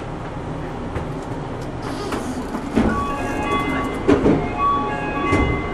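Interior of a Yui Rail monorail car rumbling as it comes to a stop at a station. A few knocks follow, and an electronic chime tune starts about three seconds in.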